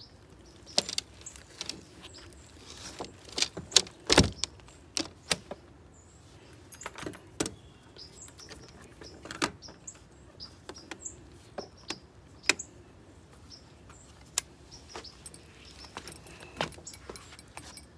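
Handling noises as a big catfish is worked in a landing net and hooked onto a hanging scale: irregular clicks, knocks and rattles of net, rope clips and scale, with a louder thump about four seconds in.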